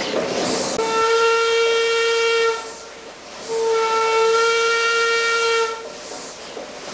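Paddle steamer's steam whistle blowing two long, steady blasts, each about two seconds, with a short gap between them.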